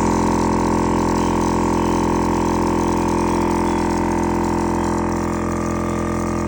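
12-volt air-suspension compressor running steadily as it builds pressure during a pressure test, a constant motor-and-pump hum that dips slightly in loudness about five seconds in.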